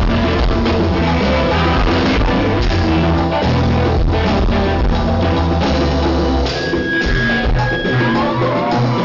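Live band playing loud rock music, with drums, bass and guitar.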